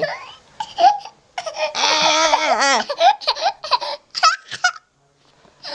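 A toddler laughing in repeated bursts: a long laugh with the pitch bobbing up and down about a second and a half in, then shorter bursts of giggling that stop shortly before the end.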